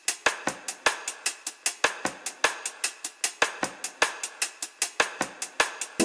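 Background music: a drum kit playing a beat on its own, with snare, bass drum and hi-hat, about four hits a second.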